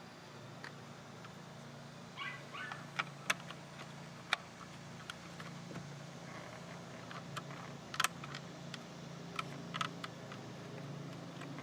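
Sharp plastic clicks and small rattles as door-panel connectors and parts are handled and snapped back together, with a steady low hum underneath.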